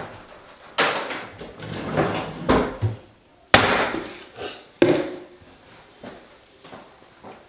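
A few sharp knocks and bangs, about four over five seconds, each dying away quickly, followed by quieter handling noise.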